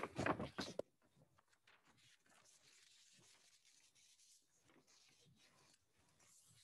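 A man's voice ends a phrase under a second in, then near silence: room tone with faint scattered ticks and rustles.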